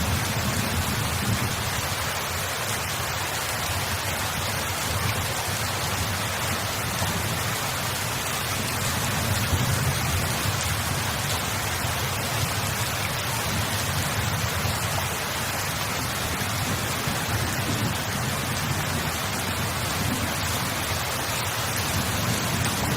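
Steady rain falling, a constant hiss with faint scattered drop ticks and a low rumble underneath.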